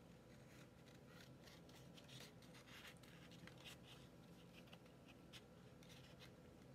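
Hand scissors cutting through a sheet of paper: quiet, irregular snips with light paper rustle.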